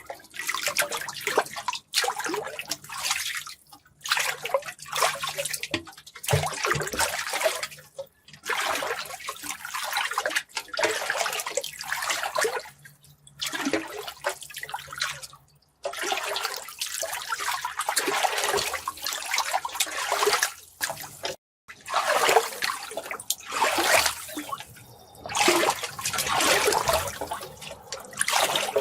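Water running and splashing in uneven spells of a few seconds, broken by brief pauses.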